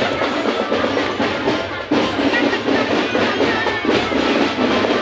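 Marching drum band playing, many drums struck in a quick, continuous beat.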